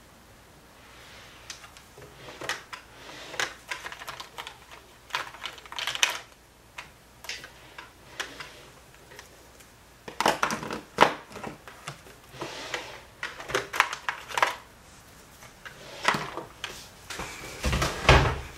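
Plastic makeup compacts, tubes and containers clicking and clattering against each other and a plastic storage basket as they are rummaged through, in uneven runs of sharp clicks. A low thump near the end.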